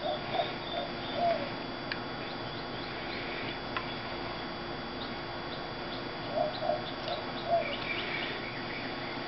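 Rubber surgical tubing squeaking against 2-inch PVC pipe as the pipe is forced into the tight tubing bladder: two clusters of short squeaks, one at the start and another about six and a half seconds in.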